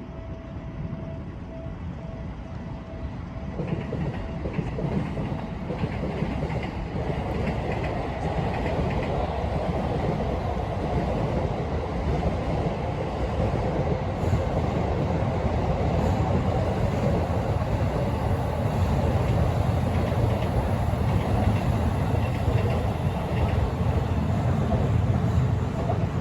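Level-crossing warning bell ringing in even dings about twice a second. From about four seconds in, a passing train's rumble and wheel clatter builds up, drowns out the bell, and stays loud.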